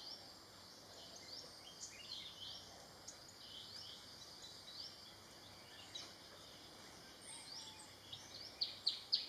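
Forest ambience: a steady high hiss of insects with scattered short, rising bird chirps, then near the end a fast run of sharp, high chirping notes, several a second.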